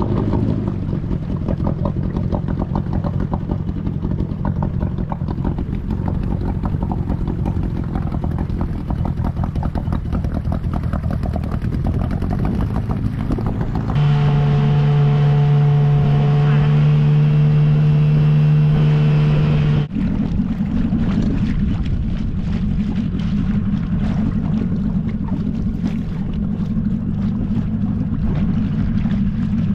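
Small two-stroke outboard motor driving a dinghy at a steady cruising speed, mixed with water rush and wind on the microphone. About halfway through the engine note becomes a clear, steady drone for several seconds, then goes back to the rougher blend of motor and water noise.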